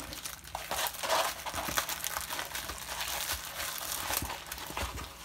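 Clear plastic film and a diamond painting canvas crinkling and crackling as they are handled and rolled up by hand.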